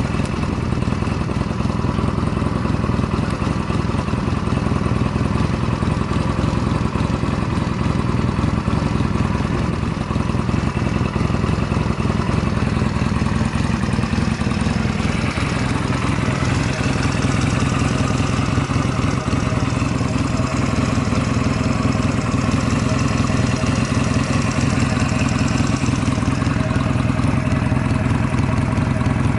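Honda Rebel 250 (MC13) air-cooled parallel-twin engine running steadily at idle, its note changing slightly about halfway through. A stock engine that the seller describes as running without abnormal noises.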